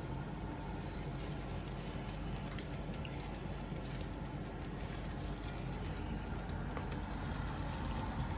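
Steady sizzling of pancakes frying in a hot pan, with a few faint pops.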